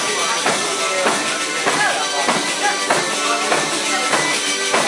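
Salento pizzica played on tamburelli, frame drums with jingles, with a strong beat a little under twice a second and voices singing over it.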